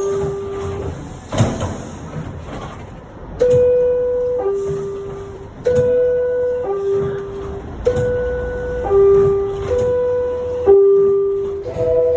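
New York City Subway R62A door-closing chime: a descending two-note ding-dong sounding four times, about every two seconds, with the last note of an earlier chime at the start and another beginning near the end. A thump about a second and a half in, over a low rumble.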